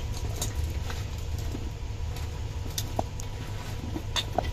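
Hands tossing and mixing raw mango chunks with salt and turmeric in a steel bowl: irregular soft clicks and taps of the pieces against each other and the metal, over a steady low hum.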